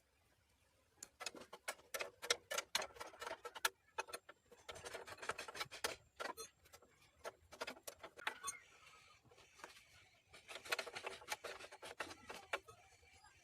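Hand tools and small metal parts being handled: irregular light clicks, taps and clinks, some with a short ring.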